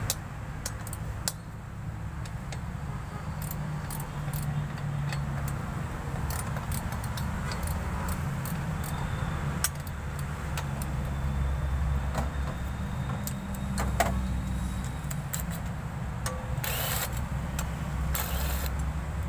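Scattered light metallic clinks and taps of hand tools and parts being worked in a Mitsubishi Montero's engine bay, over a steady low rumble. Two short hissing bursts come near the end.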